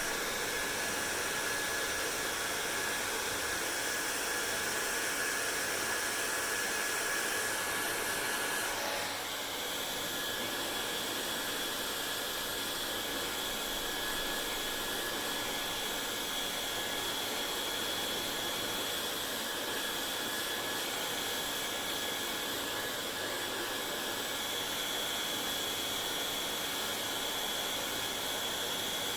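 Hair dryer running steadily: a rushing blow of air with a high whine over it. About nine seconds in, the whine jumps to a higher pitch and the sound gets a little quieter.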